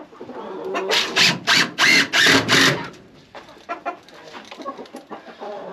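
Cordless drill driving screws into a wooden stand in a quick series of short bursts, about six in two seconds. Chickens cluck in the background.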